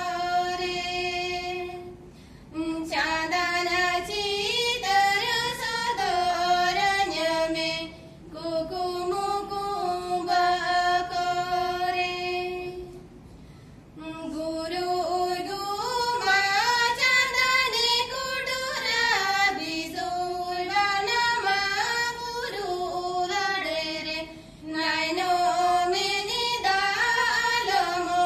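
Two women singing a song together without accompaniment, in long held phrases with short pauses between them.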